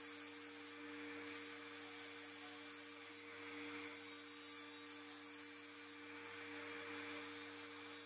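Faint steady hum of a Makita plunge router's motor running, with a high whine that comes and goes every second or so.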